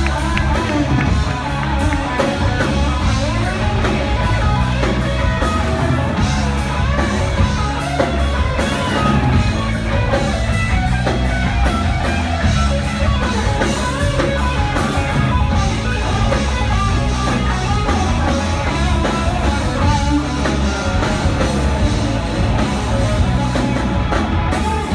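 A live heavy rock band playing: electric guitars over a drum kit, loud and unbroken.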